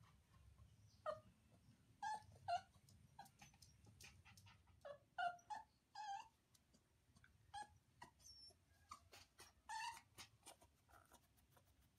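Puppy giving a string of short whimpering cries, irregularly spaced, with faint clicks between them.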